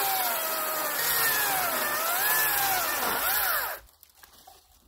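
Power saw with a blunt blade cutting through a damson tree's roots, its motor pitch rising and falling under load, then stopping suddenly about four seconds in.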